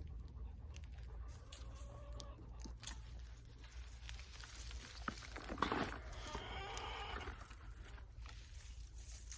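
Farm animal calling, faintly about two seconds in and again more clearly around six seconds in, over a steady low hum.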